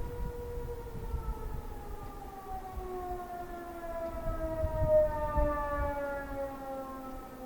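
American Signal T-128 Tempest outdoor warning sirens winding down at the end of a fire call test. Their held tones slide steadily lower in pitch from about a second in, with more than one siren tone falling at once.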